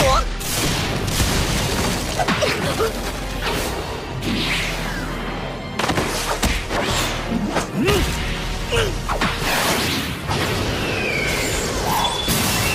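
Anime battle soundtrack: music mixed with repeated impact booms, thuds and whooshes from the fight's sound effects.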